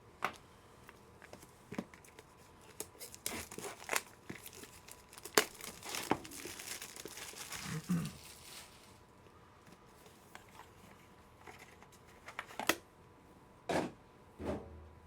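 Plastic trading-card packaging crinkling and tearing as it is opened, with scattered sharp clicks and taps of cards and cases being handled.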